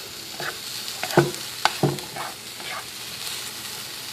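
Food sizzling in a hot pan on the stove, with a utensil knocking and scraping against the pan about six times in the first three seconds.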